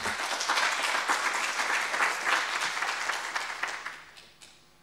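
Audience applauding, a dense patter of many hands clapping that fades out near the end.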